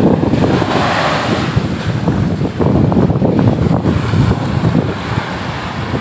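Surf washing up a sandy beach, with the foam of a wave hissing about a second in, under a heavy rumble of wind buffeting the microphone.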